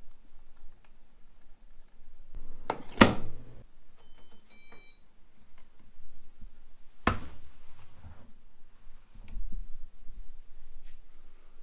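Candy front-loading washing machine being handled: a loud clunk about three seconds in, then a quick run of short electronic beeps from its control panel at several pitches. Further knocks and clicks from the machine's door follow about seven and nine seconds in.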